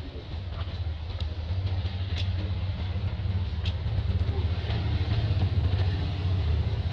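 A steady low engine rumble, holding one pitch throughout, with a few faint light ticks over it.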